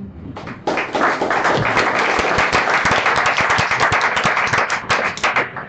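Audience applauding, starting a little under a second in and dying away near the end.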